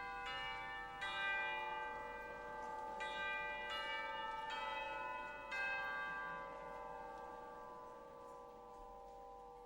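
Bells ringing: several separate strikes with long, overlapping decays, the last a little past halfway, then the ringing dies away.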